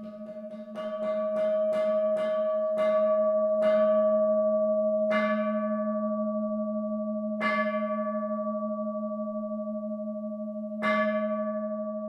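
A Buddhist bowl bell struck about a dozen times, quickly at first and then with longer and longer gaps between strokes. Each strike adds to a steady, lingering ring that never dies away between strokes.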